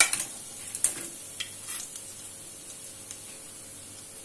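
Chopped green chillies, ginger and curry leaves with mustard seeds frying in oil and ghee in a stainless steel kadai, a steady soft sizzle with the flame turned down a little. The stirring spoon clicks against the pan a couple of times in the first second.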